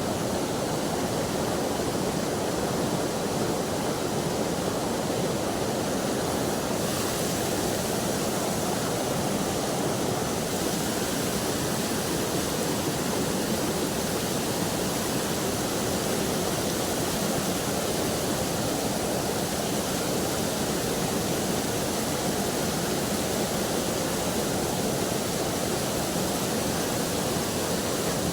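River water rushing, a steady, even noise with no breaks.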